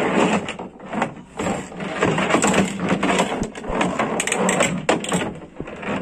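Plastic toy excavator clattering and scraping against a plastic pickup-bed liner as it is handled, a dense run of clicks and scrapes.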